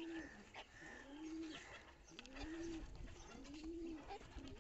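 Domestic pigeons cooing: a low, arched coo repeated about every second and a bit, four times. Light sharp taps run under it, the bantam chickens pecking at the loft floor.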